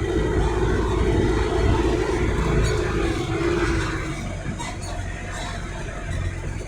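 Motor vehicle running, a steady low rumble that drops in level about four seconds in.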